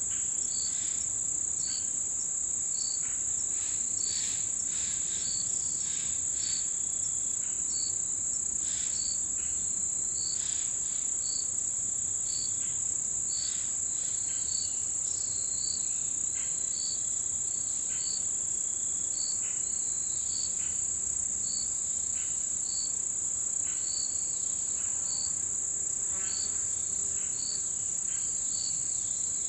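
Chorus of autumn insects in mountain woodland: a continuous high-pitched trill, over which a short chirp repeats about once a second. Scattered short, thinner calls come and go lower in pitch.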